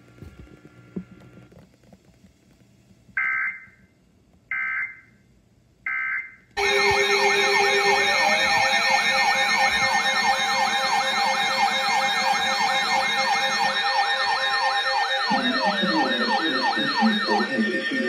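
Three short, evenly spaced digital data bursts: the EAS end-of-message tones closing a weather radio alert. About six and a half seconds in, a loud layer of several sirens begins, wailing up and down at different rates over a steady tone.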